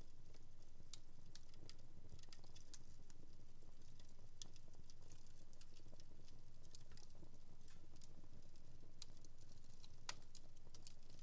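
Wood fire in a home fireplace crackling: irregular small pops and snaps, with one louder crack about ten seconds in, over a steady low hum.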